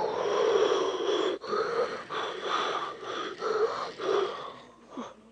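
A person's breathy, hoarse vocal sound in a run of short pulses, about six in four and a half seconds, loudest at the start and fading out near the end.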